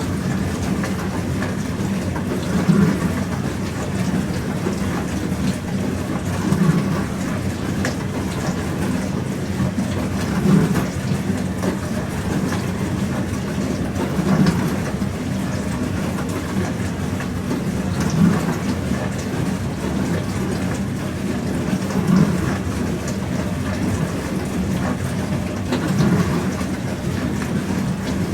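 Pro Action PRSLG96W slimline dishwasher washing: a steady rush of water spraying inside the tub, with a regular swell about every four seconds.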